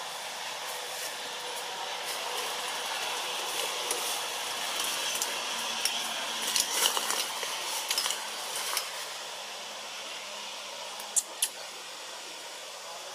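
Steady outdoor hiss, with a spell of crackling, rustling clicks about halfway through and two sharp clicks near the end.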